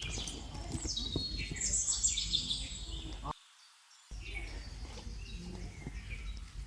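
Birds chirping over steady outdoor background noise, cut off briefly by a sudden dropout a little over three seconds in.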